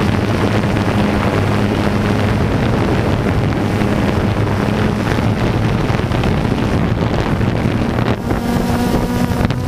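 An engine running steadily, with wind buffeting the microphone; about eight seconds in its hum shifts to a slightly higher, clearer pitch.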